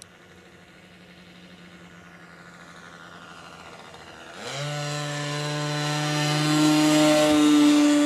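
O.S. Max 55AX two-stroke glow engine of a Spacewalker II model airplane running at high revs in flight. It is faint at first, then about four and a half seconds in it turns abruptly much louder as the plane comes close, its pitch rising quickly and then holding steady.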